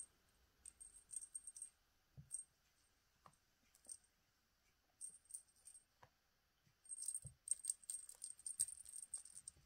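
A small jingle bell on a cat toy jingling faintly in irregular bursts as a kitten bats it about, with a few soft thumps between.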